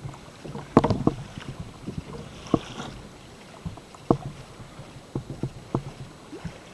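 Irregular light clicks and knocks of hands working a herring bait and its line onto a slip rig's hooks aboard a kayak, a small cluster about a second in and single knocks scattered after.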